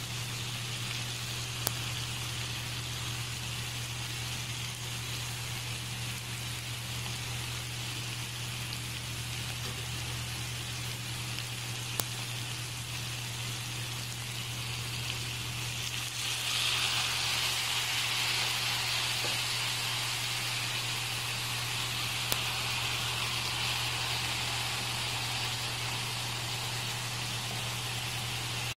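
Chopped chicken sisig sizzling steadily in a frying pan, with an occasional sharp pop of spattering fat. The sizzle grows louder a little over halfway in, over a steady low hum.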